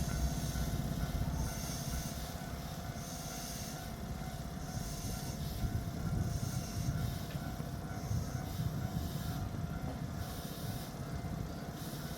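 A Tobu 8000 series electric train at the station, giving a low, chugging rumble with a steady electrical hum, and a faint high hiss that swells and fades about every second and a half.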